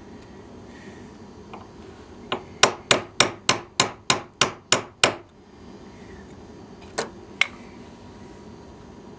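Small hammer tapping a brad down into cork roadbed through a countersink: a quick run of about ten light, sharp taps at roughly three a second, then two more single taps a couple of seconds later.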